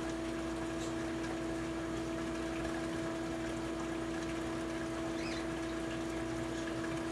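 Steady machine hum with one strong low tone over an even watery hiss, like a running pump, unchanging throughout; a few faint high chirps about a second in and again around five seconds.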